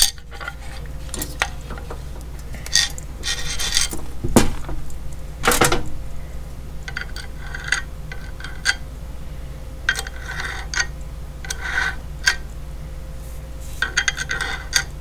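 Allen key and bracket hardware working on the metal housing of an LED light bar while the mounting brackets are fitted: scattered metallic clicks, taps and short scrapes, with two louder knocks about four and five and a half seconds in.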